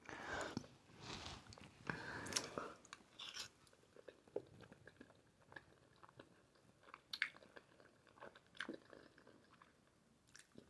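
Close-miked chewing and wet mouth sounds of someone eating spaghetti in Alfredo sauce, busiest in the first two or three seconds, then thinning to scattered soft clicks.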